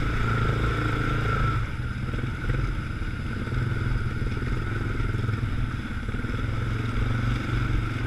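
Yamaha Grizzly ATV engine pulling steadily in low range through slushy mud, easing off a little under two seconds in. Low range takes load off its worn CVT drive belt.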